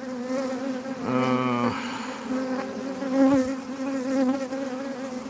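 A swarm of honeybees buzzing steadily, many bees together, as they cluster and crawl on the ground around their dead queen.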